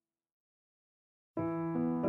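Silence, then background music with sustained chords starts suddenly a little over a second in.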